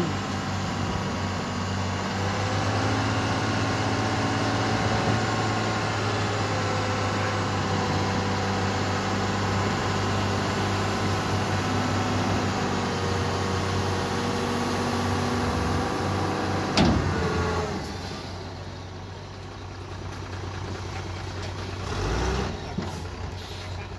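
Tata tipper truck's diesel engine running steadily while the hydraulic hoist raises the loaded dump body. About seventeen seconds in there is a sharp knock, then the engine runs noticeably quieter.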